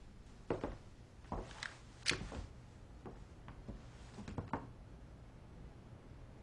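Faint, irregular footfalls and small knocks, about eight in all, with a low room tone between them.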